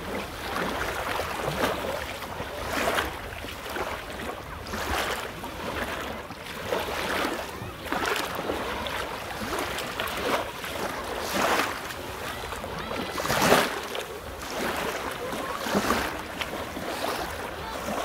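Small sea waves washing up over fine shingle and shell grit and draining back through it: a hissing, fizzing swash that surges every second or two, with one stronger surge about three-quarters of the way through.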